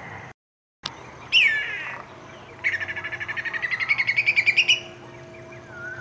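Whistling kite calling: a falling whistle, then a rapid run of short rising notes, about ten a second, that grows louder for about two seconds. Just before the call there is a brief dropout to silence and a click.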